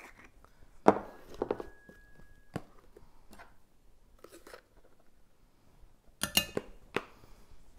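Scattered light clicks and taps of a measuring spoon and a plastic container lid as baking soda is scooped out, with a quick cluster of sharper taps of the spoon on a glass mixing bowl about six seconds in.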